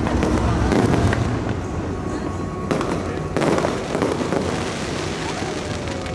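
Aerial fireworks bursting and crackling, with sharp bangs about a second in and two more just past halfway, the display thinning out toward the end.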